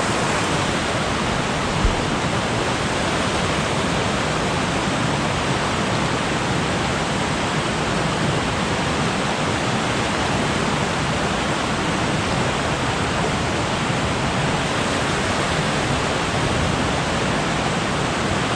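Fast, storm-swollen creek rushing and pouring over a waterfall: a steady, loud roar of water.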